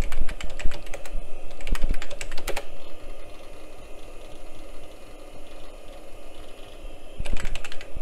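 Typing on a computer keyboard: a quick burst of keystrokes for the first two and a half seconds, a pause with only a steady low hum, then another burst near the end.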